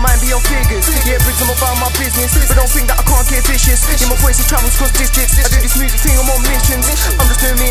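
Hip-hop track: a man raps over a beat with deep, sustained bass notes and quick hi-hat ticks.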